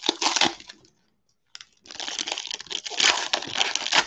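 Foil wrapper of a 2020 Donruss football card pack crinkling as it is torn open by hand, in two stretches with a brief silence about a second in.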